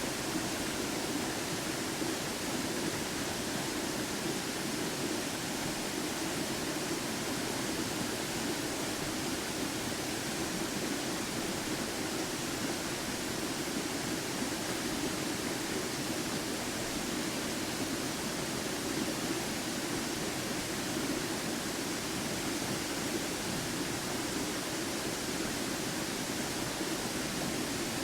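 Waterfall crashing: a steady, unbroken rush of falling water.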